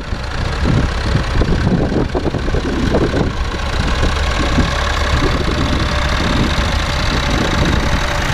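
Vintage tractor engine running steadily.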